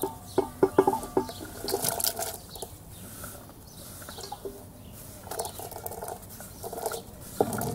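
Diced vegetables scraped by hand off a wooden cutting board and falling into a metal pot. A quick run of clattering knocks on the pot in the first second or so is followed by softer scraping and pattering.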